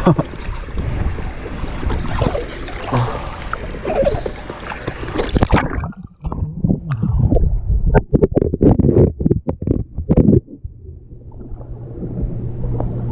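Pool water splashing and gurgling. Through the middle the sound turns muffled, with a run of dull thumps and then a low hum, before the splashing comes back clear near the end.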